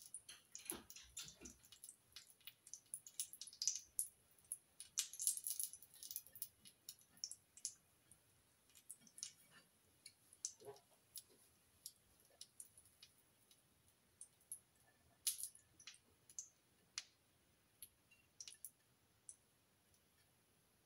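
Quiet, scattered small clicks and light knocks of a plate and burgers being handled on a kitchen worktop, frequent in the first several seconds and then sparse, over a faint steady high hiss.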